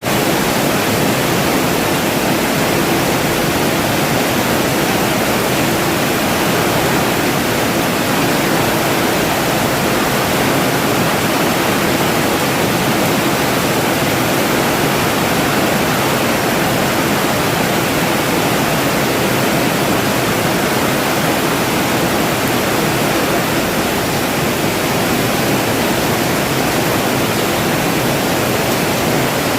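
Steady rain falling, an even, unbroken hiss that holds at the same level throughout.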